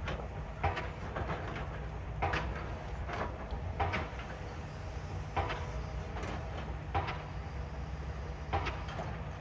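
Excavator working: its engine runs steadily underneath, while sharp metal clanks and knocks come roughly once a second as it digs.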